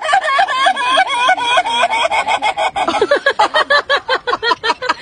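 Rooster giving a long, rapid stuttering call of quick rising-and-falling notes, about eight a second, dropping lower in pitch about three seconds in.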